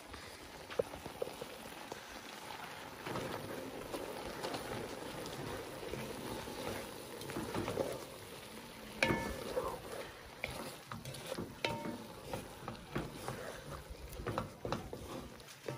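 Pot of eru greens and meat simmering. From about halfway, a wooden spoon stirs through it, scraping and knocking against the metal pot in irregular clicks.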